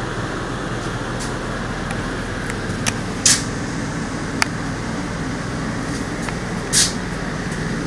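Steady mechanical hum with a low drone, broken by two short hissy rustles about three and seven seconds in.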